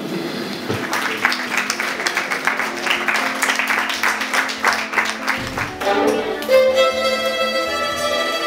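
Audience clapping for about five seconds, then a solo violin starts playing long, held notes.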